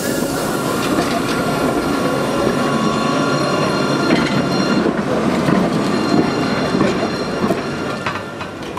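Alstom TFS tram running on its rails: a steady rumble with thin, high, held tones above it and a few clicks, easing off near the end.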